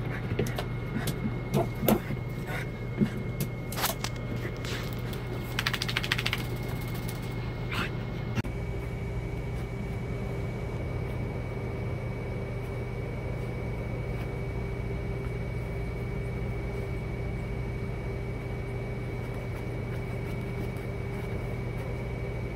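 Small dog playing on a hard floor and rugs: quick clicks and scrapes of its claws for about the first eight seconds. After that there is only a steady hum with a faint high whine.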